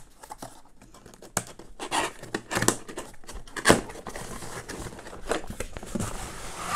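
Large cardboard box being handled on a table: scrapes, rustling and a few sharp knocks. The loudest knock comes a little under four seconds in.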